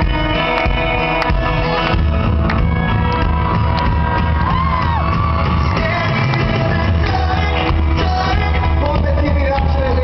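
Pop-rock band playing live, with a lead vocal over acoustic guitar, electric guitar and bass, and fans in the crowd shouting along.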